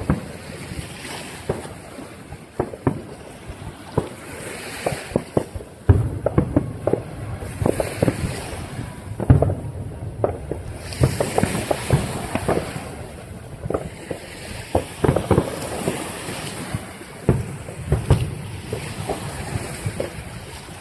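Distant fireworks: an irregular, continuous run of booms and crackling bursts, the loudest about six and nine seconds in, over wind noise on the microphone.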